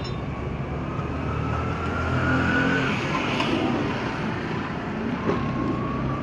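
A motor running with a steady low drone, its whine rising in pitch over a couple of seconds, with a single sharp knock about five seconds in.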